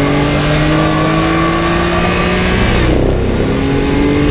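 Car engine heard on board, accelerating hard with its pitch climbing steadily, then dropping quickly about three seconds in as it shifts up a gear, and climbing again.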